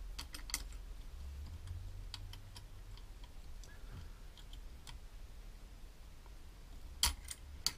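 Small light clicks and taps of metal parts being handled as a Land Rover TD5 starter motor solenoid is taken apart by hand, with two sharper clicks near the end.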